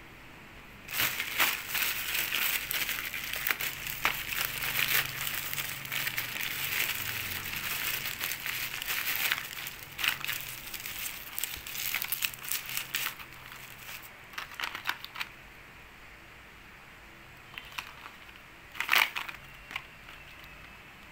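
Plastic courier mailer and bubble wrap crinkling as they are opened and unwrapped by hand. The crinkling is dense for about twelve seconds, thins out into scattered crackles, and ends with one short, loud crinkle near the end.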